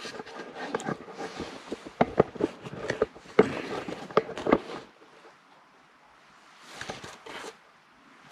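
Rustling with many small clicks and knocks from hands handling containers and tools, busiest for the first few seconds, then a short rustle again near the end.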